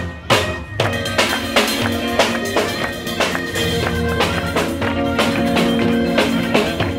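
Live street-band music: brass horns playing a lively tune over a drum kit, with a steady beat of drum and cymbal strikes.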